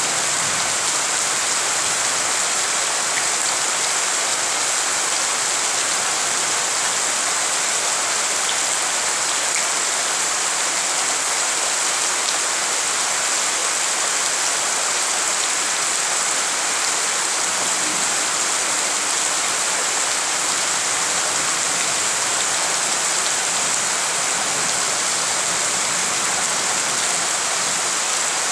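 Steady rain pouring onto a waterlogged courtyard: a dense, even hiss of drops hitting standing water and wet ground, with no change in strength.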